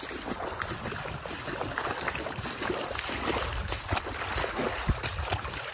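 Footsteps wading through flooded trail water: repeated splashing and sloshing as each leg pushes through.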